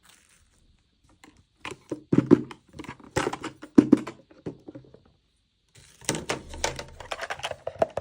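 Small plastic toy pieces and packaging being handled: a quick string of clicks, taps and light knocks in two bursts, with a short pause between them.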